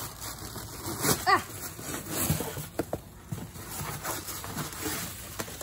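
Cardboard box and tissue paper rustling and crinkling in a run of irregular crackles and knocks as a large hay cube is worked out of the box and set down, with a brief voice-like sound about a second in.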